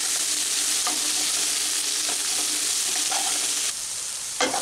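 Sliced onions sizzling in hot oil in a nonstick wok as they fry to light brown, stirred with a wooden spatula that scrapes the pan now and then. Near the end the sizzle drops suddenly and a single knock follows.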